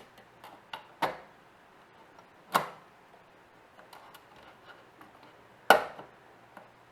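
Parts of a disassembled floppy drive being handled and fitted back together: scattered sharp clicks and taps of small metal and plastic pieces, the three loudest about a second in, about two and a half seconds in, and a second before the end.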